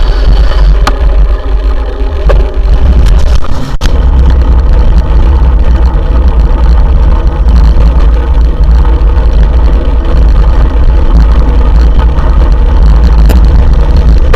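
Steady, loud rumble of wind buffeting a vehicle-mounted camera's microphone, mixed with road and traffic noise, while riding along a queue of cars.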